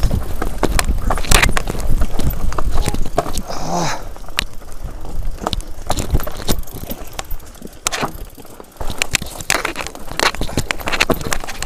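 Specialized Enduro full-suspension mountain bike rattling and clattering as it rides down a rocky trail: rapid, irregular knocks from tyres, suspension and chain over the rock, over a low rumble. The clatter eases briefly about eight seconds in, then picks up again.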